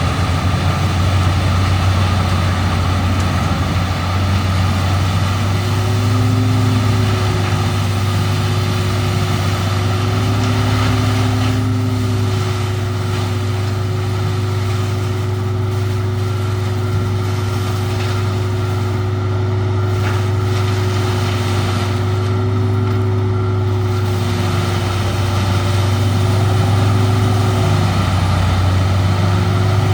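Peterson 4310B drum wood chipper running steadily: a loud, deep engine drone, with higher whining tones that come and go as the machine works.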